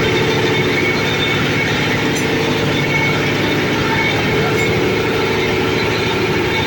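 Four-blade areca nut splitting machine running steadily, with a fast, even pulse.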